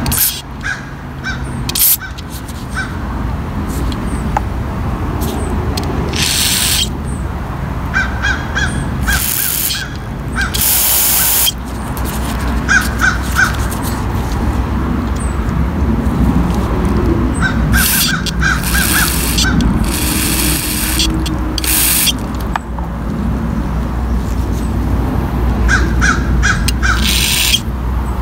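Crows cawing in short runs of three to five caws, several times over. Between the runs come several loud hissing bursts, each a second or two long.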